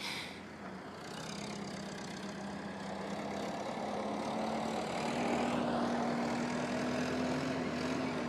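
A car engine running nearby, growing gradually louder, with a steady low hum that rises slightly in pitch about five seconds in.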